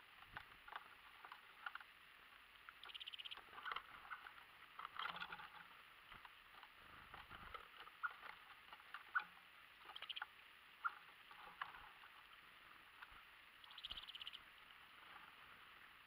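Birds pecking and hopping on a wooden feeder tray of mixed seed: faint, irregular light taps and clicks, with a few short high bursts of sound scattered through.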